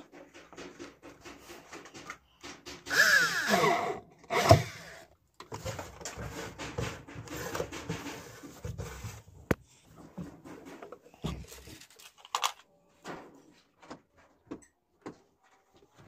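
Cordless drill driving a screw into a thin plastic container, its motor whine sliding down in pitch as the screw bites, followed by a sharp knock. Plastic parts are handled and rubbed around it.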